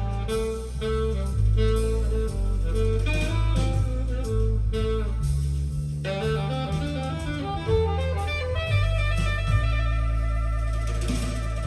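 Instrumental passage of a jazz-blues song, with guitar over a changing bass line, played back through KEF LS50 Meta bookshelf speakers.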